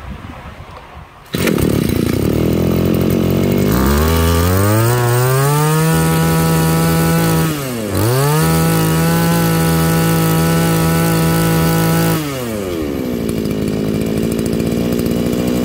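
Oshima 226 brush cutter's 26cc two-stroke engine being test-started: it catches suddenly about a second in, runs briefly at idle, then is revved up to full throttle and held there, with one brief drop and recovery in the middle, before falling back to a steady idle near the end.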